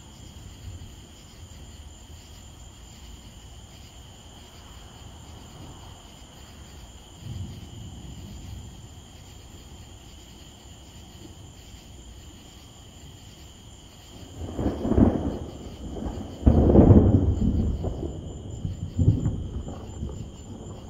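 Thunder: a faint low rumble for most of the time, then, about two-thirds of the way through, a loud rolling peal that swells and fades in several surges.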